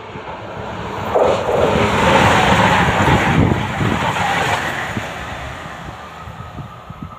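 Passenger multiple-unit train passing through a station at speed without stopping: the rush of wheels and engines builds about a second in, stays loud for about three seconds, then fades away as it leaves.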